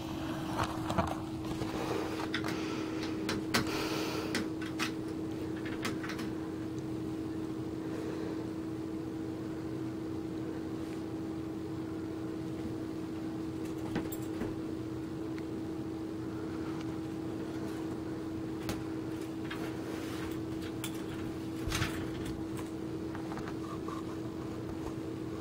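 A steady background hum holding one constant pitch, with a few faint, brief clicks and knocks scattered through it.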